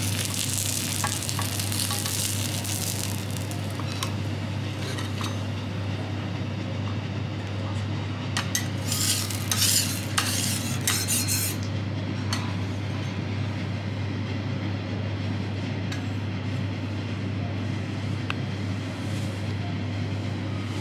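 Food sizzling on a hot teppanyaki griddle, fading over the first few seconds. Metal utensils clink and scrape against the griddle and plate, in a loud cluster from about 8 to 11 seconds in. A steady low hum runs underneath.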